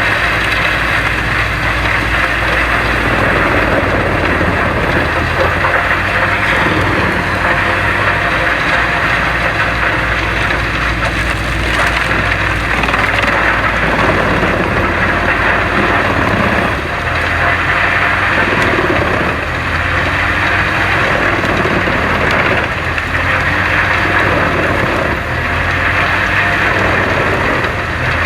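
Woodchipper running steadily under its engine, with a dense crunching and splintering noise as wood is fed through. There are brief dips in loudness now and then.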